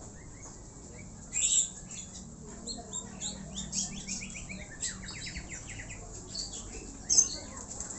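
Pigeons' wings flapping in two short bursts, about a second and a half in and again near the end. Between them, small birds chirp in a quick run of falling notes.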